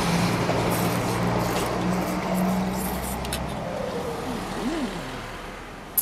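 A motor vehicle's engine going by: a steady low hum with road noise that fades away over the first three or four seconds. A single sharp click near the end.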